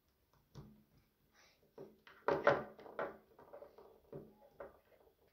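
Small plastic toy figurines and a plastic capsule handled and set down on a table: a few soft knocks and rustles, the loudest about halfway through.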